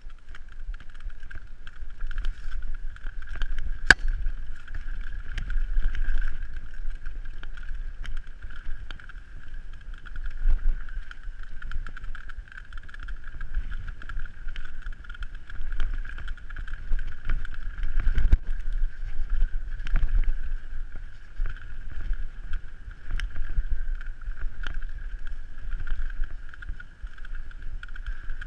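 Specialized Demo 8 downhill mountain bike ridden fast down a rough dirt trail: wind rumbling on the camera microphone over constant rattling from the bike, with a steady high buzz throughout and sharp knocks as the wheels hit bumps, the loudest about 4 and 18 seconds in.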